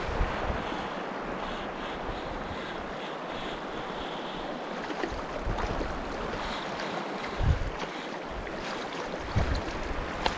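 Steady rush of a mountain river's running water, with gusts of wind buffeting the microphone now and then.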